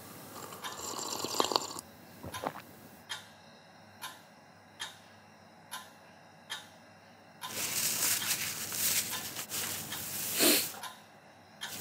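A sip from a coffee cup, then soft ticks a little under a second apart in a quiet room. Near the end comes a long breath and a sniff.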